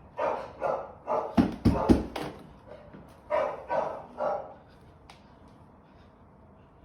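Dogs barking in quick runs of short barks: a burst over the first two seconds, loudest near the end of it, then three more a little past three seconds in, then they stop. This is the agitated barking of deeply distressed house dogs.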